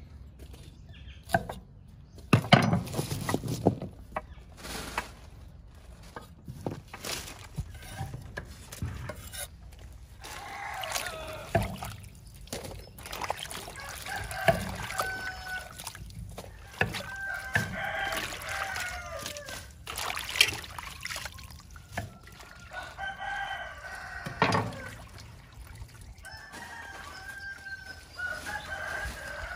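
Roosters crowing, about five long crows from about ten seconds in. In the first few seconds there are sharp chops of a cleaver cutting cauliflower stems on a wooden chopping block.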